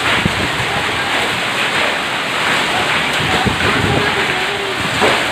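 Hail mixed with rain pelting down on a paved street: a steady, dense hiss of falling stones and water with scattered sharper ticks of single hailstones striking.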